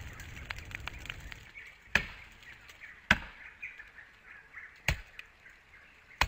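An axe chopping into a tree trunk to fell it: four sharp blows on wood, one to two seconds apart.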